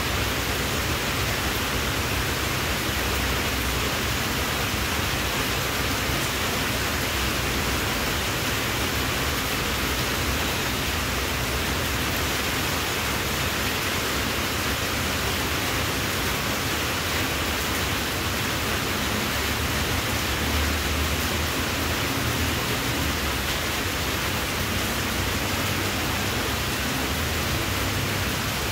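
A steady, even hiss with no separate events in it.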